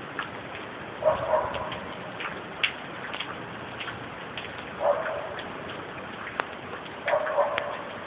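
Steady hiss of a storm, with scattered light ticks and three short, louder bursts about one, five and seven seconds in.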